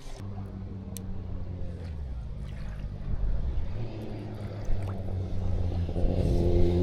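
An engine running steadily with a low, even hum that grows a little louder near the end.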